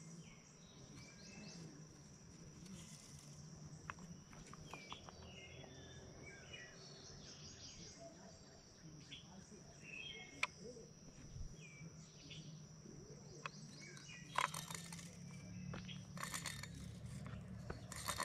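Quiet riverbank ambience: a steady high insect drone, short bird chirps now and then, and a few sharp clicks and rustles, most of them near the end.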